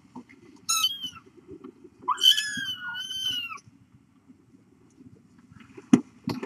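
A kitten meowing twice in high-pitched calls: a short one about a second in, then a longer two-part meow lasting about a second and a half, over a low rumble. A couple of sharp knocks come near the end.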